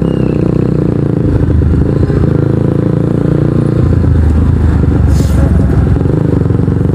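Kawasaki NS150 motorcycle engine running through an Akrapovic exhaust while riding in traffic, under a steady low rumble. A brief hiss comes about five seconds in.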